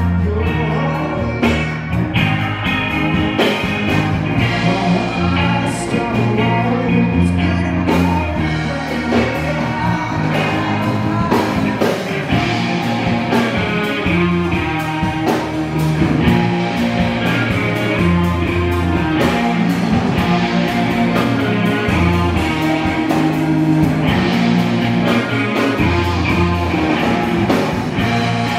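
Live rock band playing a song on electric guitars, bass and keyboard, with a steady beat.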